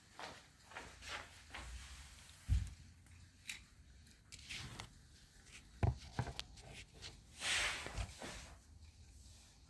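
Handling noise: a few scattered knocks and thumps, the clearest about two and a half and six seconds in, and a brief rustle a little after seven seconds.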